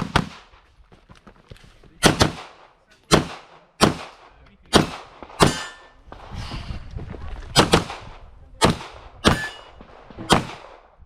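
Handgun fired about a dozen times in a practical-shooting stage run: quick pairs and single shots, each a sharp crack with a short echo. There is a pause of about two seconds in the middle, where the shooter moves between firing positions.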